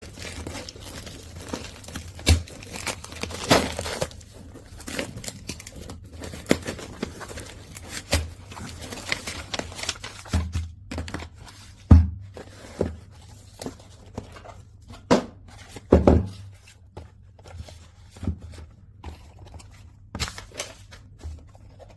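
Product packaging being torn open and handled by hand: tearing and crinkling with many irregular clicks and knocks, the loudest about halfway through and again a few seconds later.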